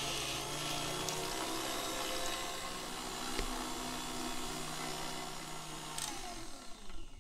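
KitchenAid stand mixer running its metal meat-grinder attachment, a steady motor hum as it grinds chilled fat and meat. Near the end it is switched off and the motor winds down.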